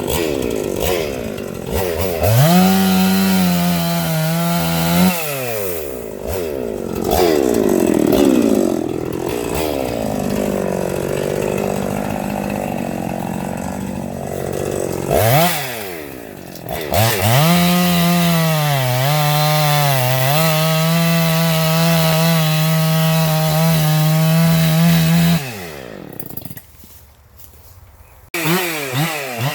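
Husqvarna two-stroke chainsaw revved up to full throttle twice and held there, the pitch dipping briefly during the second long run, which typically happens as the chain bites into the wood. Between the runs it drops back to lower revs, and it goes much quieter for a couple of seconds near the end before picking up again.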